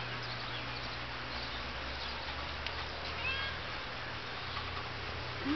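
Domestic cat meowing: a short call about three seconds in and a louder, low rising meow near the end, over a steady low hum.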